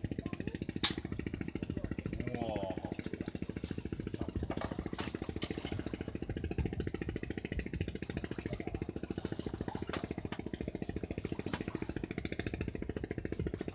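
A small engine running steadily, its even, rapid thudding unchanged throughout, with a sharp click about a second in.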